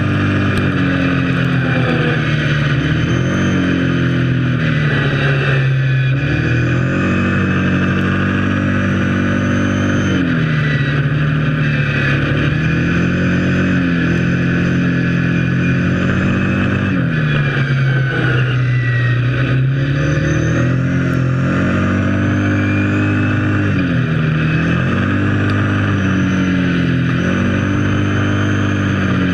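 Kawasaki KFX 700 quad's V-twin engine running under way. Its pitch drops as the throttle eases off and climbs again every few seconds.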